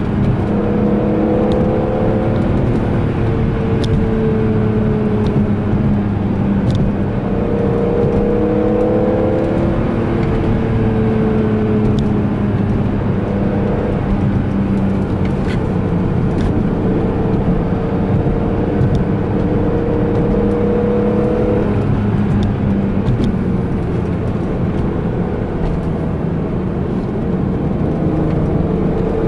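BMW E46 M3's 3.2-litre straight-six engine cruising, heard from inside the cabin. Its pitch rises and falls a little with the throttle through the bends and climbs near the end.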